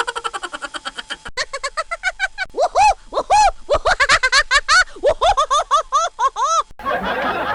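Laughing sound effects played back to back: rapid, evenly pulsed ha-ha laughter, then about a second in a laugh of quick rising-and-falling notes. Near the end it cuts to a denser, noisier laugh of several voices together.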